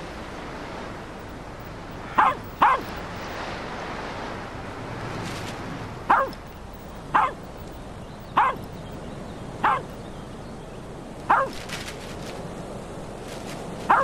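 A dog barking: about eight short, sharp barks, a quick pair about two seconds in and then single barks a second or more apart, over a steady rush of wind.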